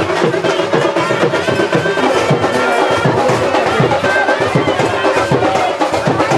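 Loud music: a sustained melody over regular drum strokes, a steady beat.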